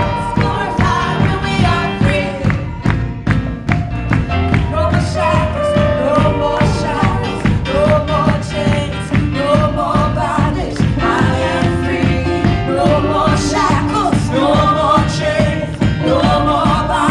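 Live Christian praise and worship music: a band with a steady drumbeat, and singers carrying the melody.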